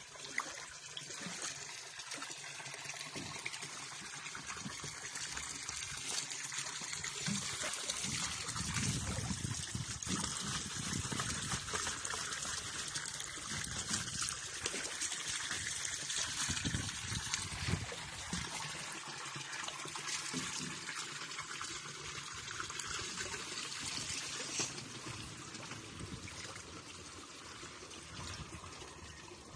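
Shallow water trickling and running over rocks in a steady stream, easing off somewhat near the end.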